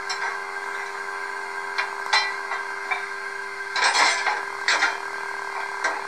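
Standing sounds from an H0 model steam locomotive's sound system: a steady hum under irregular metallic clanks and short hisses, the loudest cluster about four seconds in.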